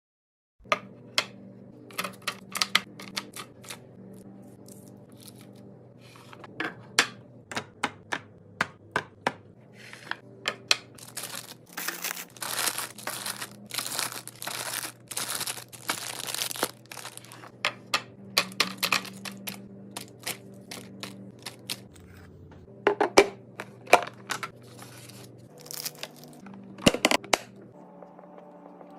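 Plastic packaging crinkling and tearing, with many sharp taps and clicks of items being handled and set down during restocking; the crinkling is densest in the middle. Faint steady low tones sit underneath.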